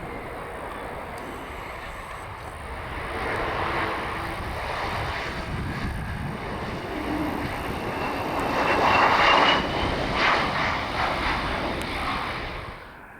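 Jet engine noise from a Bombardier CRJ-900's two rear-mounted GE CF34 turbofans as it comes in to land. The noise builds to its loudest about nine seconds in, with a brief rising whine, then drops off sharply near the end, over a low rumble of wind on the microphone.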